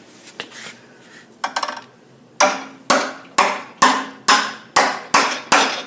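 Hammer blows on metal: after a brief clatter, about eight sharp strikes at roughly two a second begin a couple of seconds in, each with a short ring, as a bent part is hammered back into shape.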